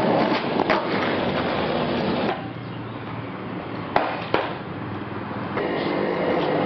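Skateboard wheels rolling on concrete, with a few sharp clacks of the board: one near the start, one under a second in, and two close together about four seconds in.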